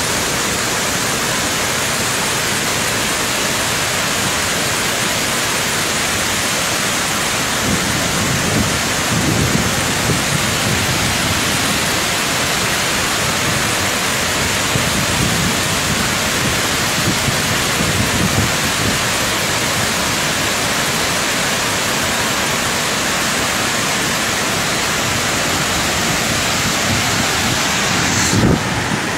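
High-pressure water jets from Tarbela Dam's outlets discharging into the air: a loud, steady rush of water and falling spray.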